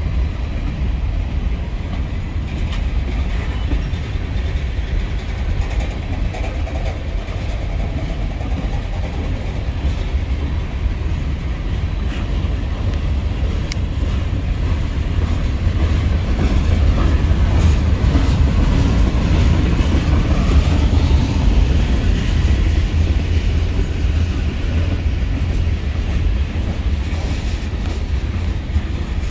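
Freight cars of a CSX manifest train rolling past: a steady low rumble of steel wheels on rail with occasional clicks, growing a little louder in the second half.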